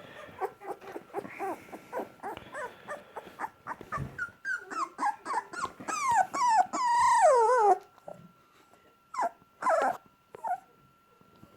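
Dogs play-wrestling and vocalizing: a quick run of short growls and whines that grows louder and builds into a long, wavering whine falling in pitch about seven seconds in, then a few short grumbles after a pause.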